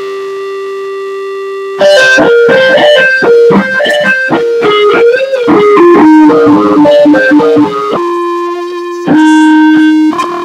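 Electric guitar through effects: one note held for about two seconds, then a fast run of notes with pitch bends, settling into longer held notes near the end.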